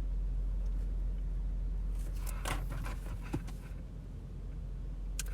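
Steady low hum of a parked car running, heard inside the cabin, with about two seconds of rustling and crinkling from handling cards and packaging, starting about two seconds in.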